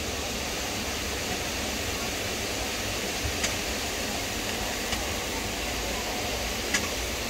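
Steady background noise, a low rumble and hiss, with three faint clicks in the second half.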